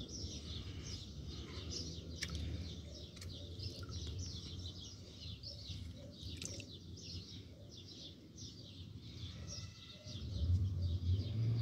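Small birds chirping rapidly and continuously, with a few faint drips and splashes of water as duckweed is tipped from a cup into a water tub. A low rumble comes up about ten seconds in.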